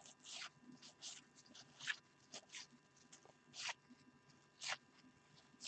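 Faint, short swishes of cardboard trading cards sliding past one another as 1989-90 Fleer basketball cards are flipped through one at a time, a dozen or so at irregular intervals.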